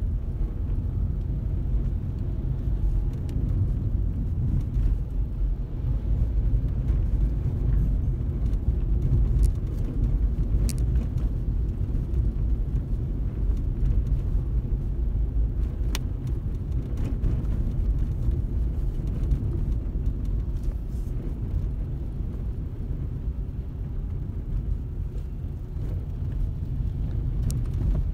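Car on the move: a steady low rumble of road and engine noise, with a few sharp clicks.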